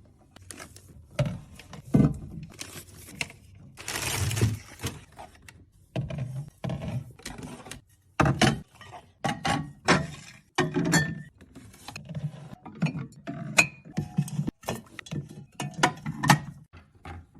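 Aluminium soda cans being set into and pushed along mini-fridge shelves: an irregular run of clinks and knocks, with a short rustle about four seconds in.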